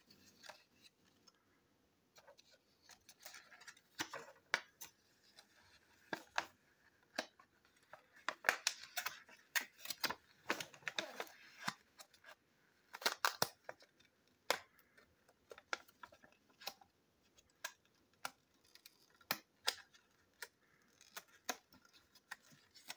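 Paper instruction sheets and a booklet being handled and leafed through: intermittent rustling and crisp paper clicks, busiest in the middle.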